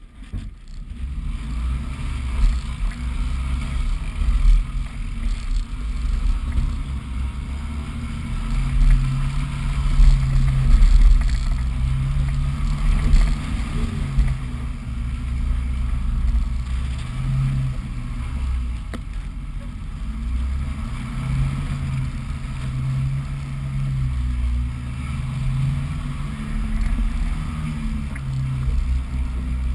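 Suzuki Vitara 4x4 driving slowly over a rough, rutted off-road track: a low engine and drivetrain rumble that swells and eases as it crawls along.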